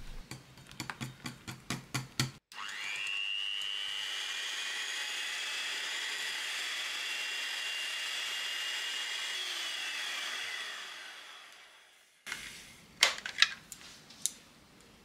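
A wire whisk clicking rapidly against a glass bowl as a thick cream cheese batter is stirred. Then an electric hand mixer spins up and runs steadily for about eight seconds with a high whine, beating the batter, and winds down. A few knocks follow near the end.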